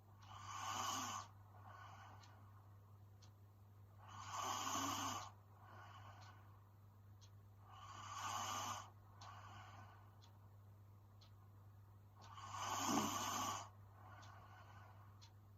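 A woman snoring in her sleep: four snoring breaths, each about a second long and about four seconds apart, with fainter breaths between them. A steady low hum runs underneath.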